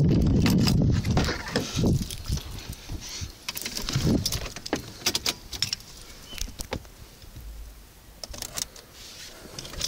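Keys jangling and rattling, with scattered sharp clicks and a few dull knocks in the first two seconds, as a USB stick is handled and pushed into the car's Sony head unit.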